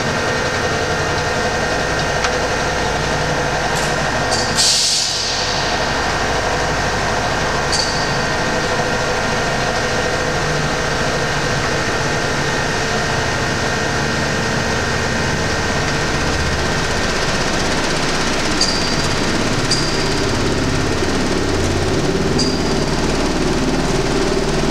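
Electrodynamic shaker test rig running a swept-sine vibration test on a spacecraft structural model: a steady mechanical hum and hiss with several held tones. A few sharp clicks and one louder knock about five seconds in, and a deeper tone grows stronger over the last several seconds.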